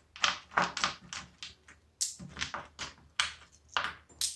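Loose coins being handled and set down on a table, making a quick, irregular run of small clicks and clinks.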